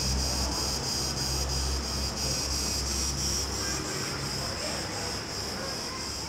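A steady, high-pitched buzz of cicadas chorusing, with a low rumble underneath that drops away about four seconds in.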